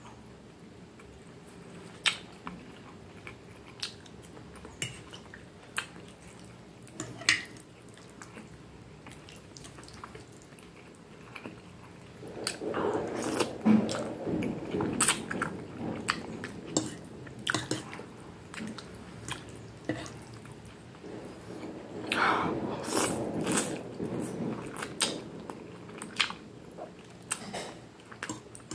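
Close-up chewing and wet mouth sounds of someone eating pasta and meatballs in tomato sauce, heaviest in two stretches about halfway through and again later. Scattered sharp clicks of a fork against the plate.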